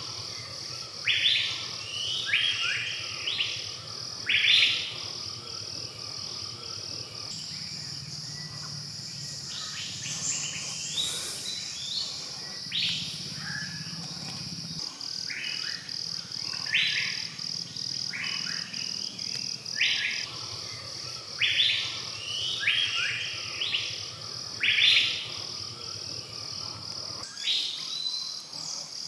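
Forest birds calling again and again in short, sharp phrases over a steady high-pitched insect drone.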